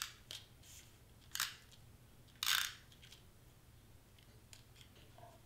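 Adhesive tape being pulled from its roll and pressed down around the edge of a foam letter: a few short scratchy rasps, the loudest about two and a half seconds in.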